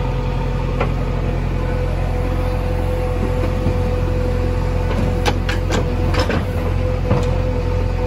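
JCB 3DX backhoe loader's diesel engine running steadily with a steady whine while the backhoe swings a loaded bucket over a tractor trolley. A quick cluster of sharp knocks comes about five to six seconds in, and one more near seven seconds, as the bucket starts dumping.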